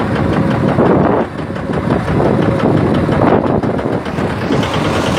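Small boat's engine running steadily while the boat is under way, mixed with a continuous rushing noise.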